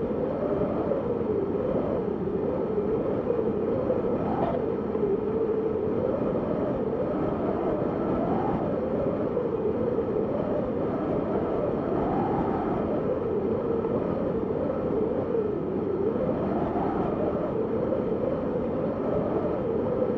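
Snowstorm wind blowing steadily: a constant rushing noise with a whistling tone that rises and falls in pitch every few seconds.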